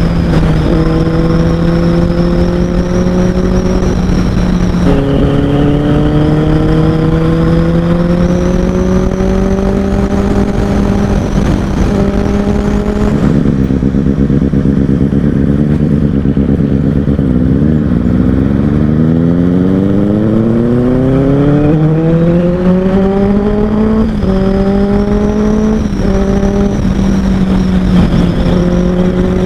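Benelli 600i inline-four engine through an Ixil X55 twin slip-on exhaust, being ridden hard. The note climbs in pitch and drops at each gear change, eases lower for a few seconds about halfway through, then pulls up through the gears again with quick shifts near the end.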